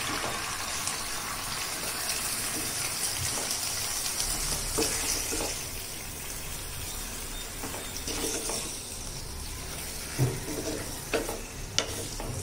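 Raw chicken pieces sizzling in hot oil in a non-stick pan as they are stirred with a wooden spatula, the sizzle easing off in the second half. A few sharp knocks of the spatula against the pan near the end.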